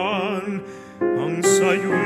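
A tenor singing a held note with wide vibrato in a classical style, ending the phrase about half a second in; after a short lull the piano and flute accompaniment comes in with sustained notes about a second in.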